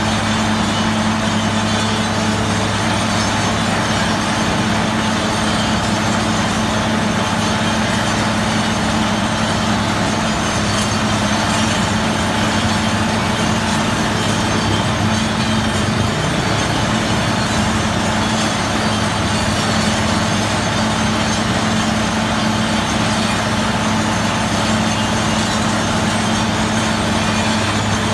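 A heavy machine's engine running steadily at constant speed, a continuous even drone with no revving or breaks.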